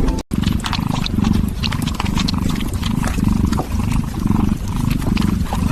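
Low, rough rumbling cat sound in repeated pulses, with scattered clicks over it. The music stops abruptly just after the start.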